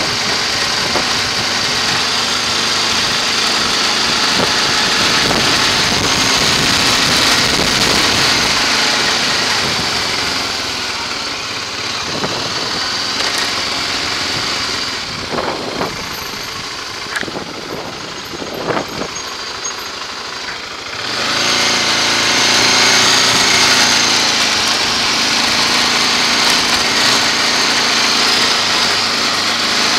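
Motorcycle engine running with wind rush while riding slowly through town. It goes quieter for several seconds about halfway through, with a few short knocks, then picks up again with a steady engine note as the bike pulls away.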